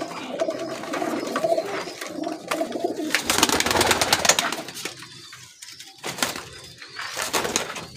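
Domestic pigeons cooing, a low warbling coo for the first three seconds, then a brief rush of rustling noise.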